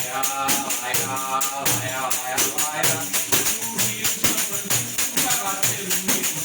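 Large pandeiro played in a steady, quick rhythm of jingle hits, with a wavering melody line over it.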